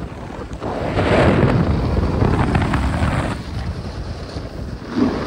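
Wind rushing over the microphone during a run down a snow slope, with the hiss of edges sliding on snow. It swells about a second in and eases after about three seconds.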